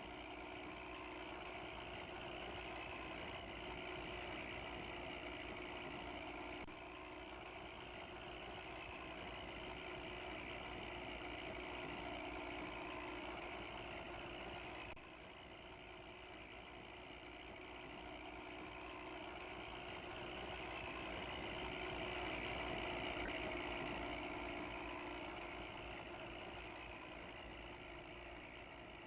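Bus engine running with a rough, snoring note (ngorok). The level dips abruptly about 7 and 15 seconds in, then swells and eases off again.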